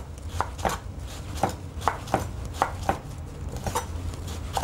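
Chef's knife slicing an aubergine into strips on a wooden cutting board: a run of irregular knocks of the blade on the board, two or three a second, over a low steady hum.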